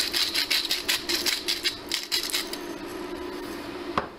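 Hand-twisted pepper mill grinding black peppercorns: a fast run of gritty clicks, about five a second, that stops about two and a half seconds in. A single sharp click comes near the end.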